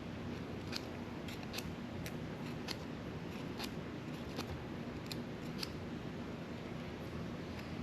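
Light, sharp clicks of small hand tools, about one to two a second and irregular, over a steady low hum.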